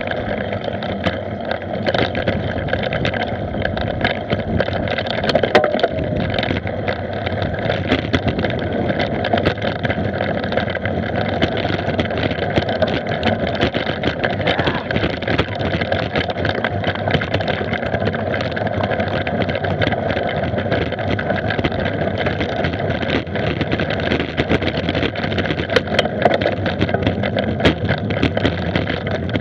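Mountain bike riding over a dry dirt and gravel track, heard through a camera mounted on the bike or rider: a steady rumble of tyres and rattling with constant small clicks and knocks.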